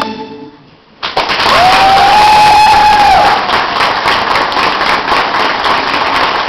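Backing music fades out, then about a second in an audience bursts into loud applause, with one long cheering shout held over the clapping for a couple of seconds.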